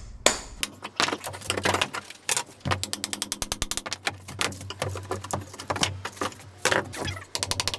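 Crowbar knocking and prying at old lino and floor timbers. Two sharp knocks come at the start, then the work plays back sped up, so the knocks and scrapes run together into a fast, irregular stream of clicks.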